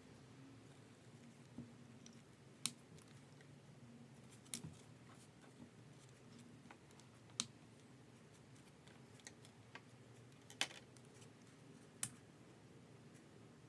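Plastic gel pens being handled on a desk: a few sharp, separate plastic clicks and taps as a pen is picked up, used and set back down, with near silence in between.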